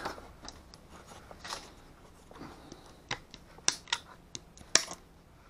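Plastic blister packaging being cut open with a hand cutting tool: scattered sharp snips and clicks of plastic, most of them in the second half.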